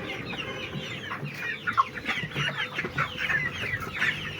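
A flock of chickens calling: many short, overlapping, mostly falling calls from several birds at once.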